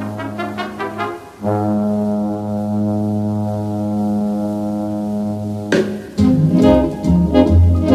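Background music led by brass: a few short notes, then one long held chord for about four seconds, then a sharp new entry near the end into a busier passage with a bass line.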